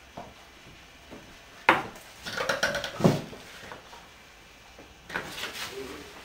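Dishes and cutlery clattering on a table: a sharp knock, a run of rattling, then a heavier knock about three seconds in, and more rattling near the end.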